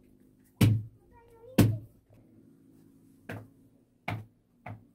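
Hands slapping and pressing lumps of bread dough on a floured cloth: five dull thumps, the first two loudest.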